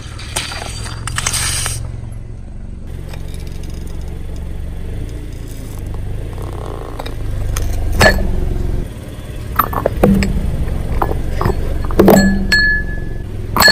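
Car tyre rolling slowly over plastic toys and crushing them: a low rumble broken by several sharp cracks and snaps of plastic giving way, the loudest about eight and twelve seconds in.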